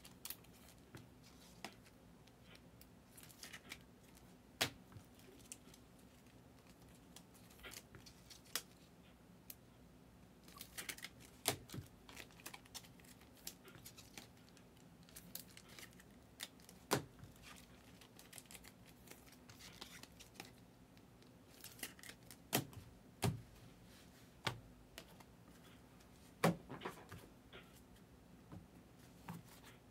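Trading cards being handled: scattered faint clicks, taps and short rustles of cards, plastic sleeves and pack wrapping, over a faint steady low hum.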